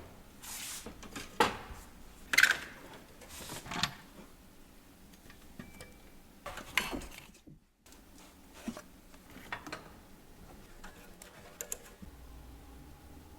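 Metal clanks and clicks of tools or engine parts being handled, a handful of sharp hits in the first four seconds and another around seven seconds, then lighter clicks.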